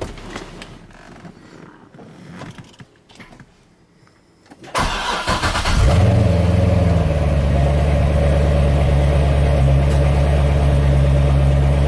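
C6 Corvette Grand Sport's 6.2-litre LS3 V8 being cranked by the starter about five seconds in. It catches within about a second with a brief rise in revs, then idles steadily. This is the first start after a new alternator was fitted, after a few faint clicks.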